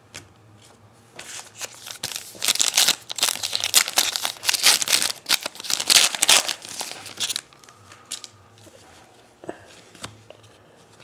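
A foil trading-card pack being torn open and its wrapper crinkled, a dense crackling rustle that dies down after about seven seconds into lighter handling noise.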